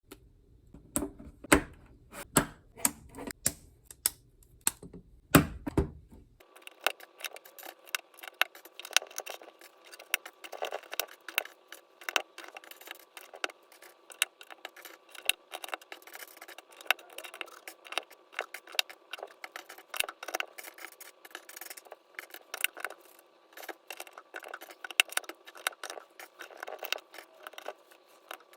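Small plastic Lego pieces clicking and clattering as they are handled and pressed together, in quick irregular clicks. About six seconds in, the sound changes abruptly to a denser, thinner clatter.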